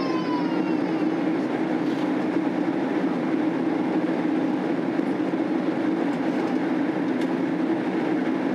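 Steady cabin noise of a Boeing 767-300 airliner in flight, heard from inside the cabin: an even rush of engine and airflow with a low hum. A faint short tone fades out in the first second.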